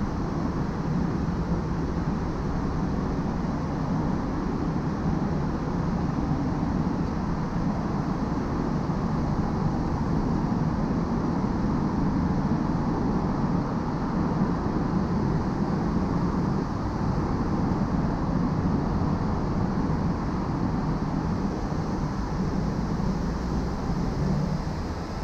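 Steady road noise of a car driving along a highway: a low tyre and engine rumble with wind, even throughout.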